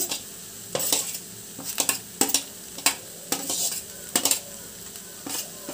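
A metal utensil scraping and clinking against a steel plate as fried chicken pieces are pushed off it into a wok of rice: short sharp clinks at irregular intervals over a faint steady hiss.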